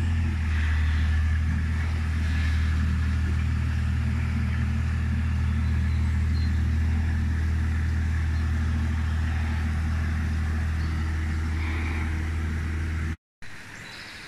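Mini excavator's diesel engine running steadily at a constant speed, a low drone. It cuts off suddenly near the end, leaving quieter outdoor background.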